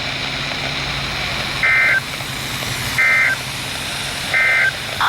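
Emergency Alert System end-of-message tones: three short warbling bursts of SAME digital data, about a second and a half apart, closing a severe thunderstorm warning broadcast. A steady low hum runs underneath.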